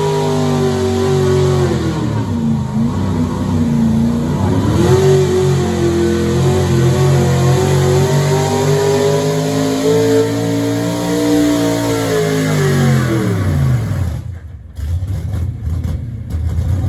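Super stock gas pulling truck's engine held at high revs as it drags a weight-transfer sled. The revs sag a couple of seconds in and pick back up, then wind down a little past twelve seconds as the pull ends and the truck stops, dropping to a quiet idle.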